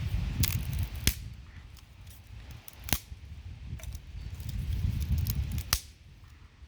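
A few sharp, separate clicks or snaps, about four spread over several seconds, over a low, uneven rumble.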